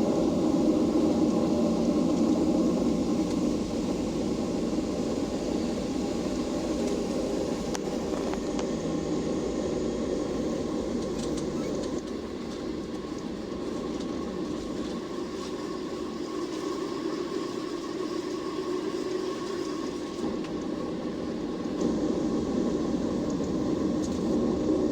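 Steady cabin noise inside a Boeing 737-800: the CFM56-7B engines and rushing air make an even low rumble with a faint hum over it.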